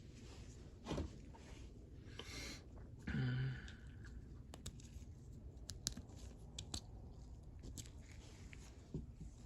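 Small metal ratchet parts being picked up and set down on a work surface: scattered light clicks and taps, with a brief louder sound about three seconds in.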